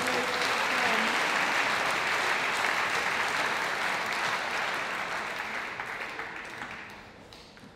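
Spectators applauding a won point in a large hall, holding steady for several seconds and then dying away near the end.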